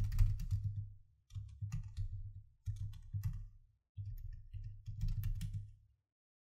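Typing on a computer keyboard: short runs of clicking keystrokes, each over a dull thud. The typing stops near the end.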